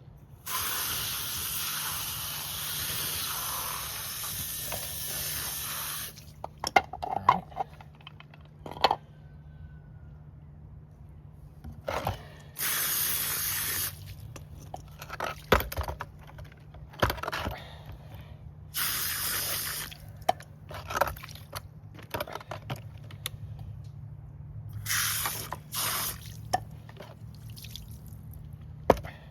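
Liquid sprayed from a nozzle in hissing bursts, washing grime out of an old chainsaw. There is one long spray of about five seconds, then three shorter ones, with knocks and clicks of handling the saw in between.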